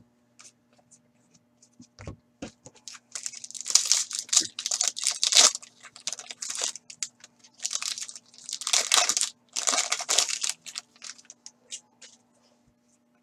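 Foil wrapper of a hockey card pack being torn open and crinkled by hand, in two bursts of tearing and rustling about three and nine seconds in, with a few light clicks of handled cards around them.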